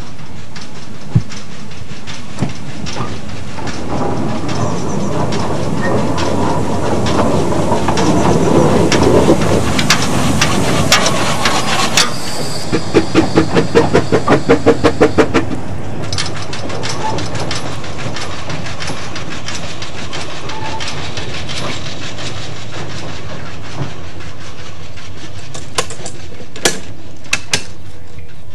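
A narrow-gauge steam locomotive working: a rush of steam and wheel noise builds up, then gives way to a run of sharp exhaust beats, about three a second, for a few seconds in the middle. Near the end come a few short metallic clanks as a set of points is thrown by its hand lever.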